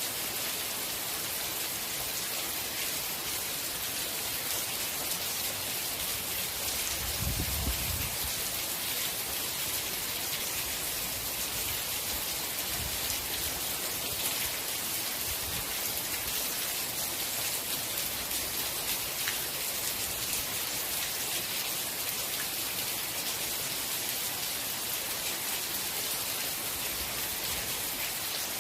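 Steady rain: an even hiss of falling drops, with a brief low rumble about seven seconds in.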